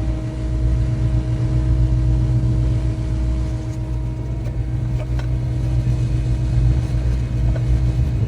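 Car engine idling: a steady low rumble with a constant hum over it and a couple of faint clicks.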